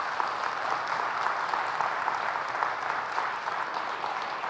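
Congregation applauding, a dense, steady clapping.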